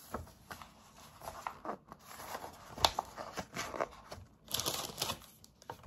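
Dry lasagna sheets being laid into a disposable aluminium foil baking tray: the thin foil crinkles and the stiff pasta clicks against it in irregular taps. The sharpest click comes near the middle, and a burst of crinkling comes about four and a half seconds in.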